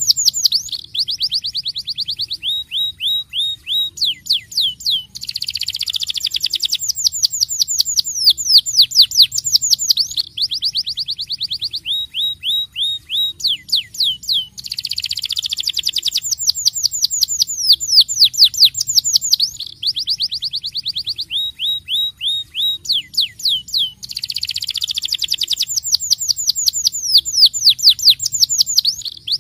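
Starblue canary singing a long rolling song: rapid trills of falling notes, broken by denser buzzy rolls. The same sequence of phrases comes round about every nine seconds.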